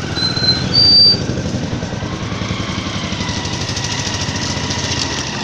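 Small engine of a two-wheeler running steadily under way, heard from the pillion seat, with a short high-pitched beep about a second in.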